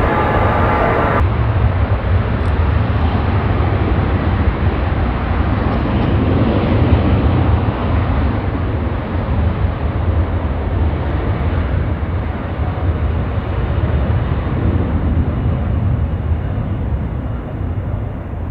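Jet airliner engines rumbling as a plane passes, a deep continuous roar that swells to its loudest about seven seconds in, then slowly fades. In the first second a higher, steady multi-tone whine is heard before it cuts off suddenly.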